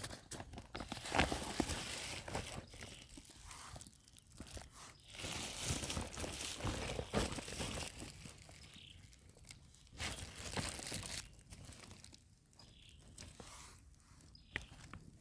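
Irregular rustling and crunching, like dry grass and plant stems being pushed through and handled, coming and going in uneven spells with quieter gaps between.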